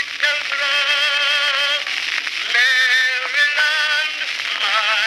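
Edison cylinder phonograph with a brass horn playing a cylinder record of a singer with a strong vibrato. The sound is thin and narrow, with no bass. Long held notes are broken by a short pause about two seconds in and another near the end.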